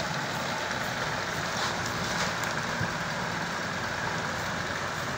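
Steady machine noise with a few faint clicks.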